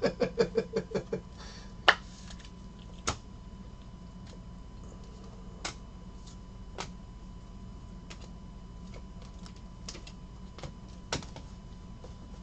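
Trading cards and a rigid plastic card holder being handled and set down on a table: a quick run of ticks in the first second, then single sharp clicks and taps every second or few, over a faint steady hum.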